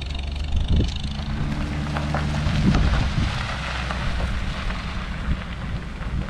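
A vehicle engine running steadily, with wind noise over the microphone.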